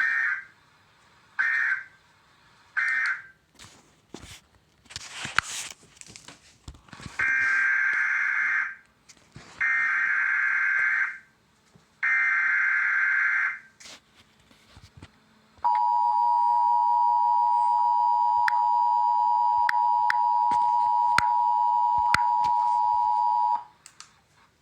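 Emergency Alert System tones: three short bursts of digital data, the end-of-message code, then a few seconds of clicks and crackle. Three longer data bursts follow, the header for the next alert, and then the steady two-note attention signal sounds for about eight seconds.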